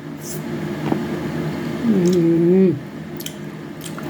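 Close-miked wet chewing of a juicy honey orange, with sharp squishy mouth clicks and smacks. A short, held 'mmm' of enjoyment is hummed about two seconds in.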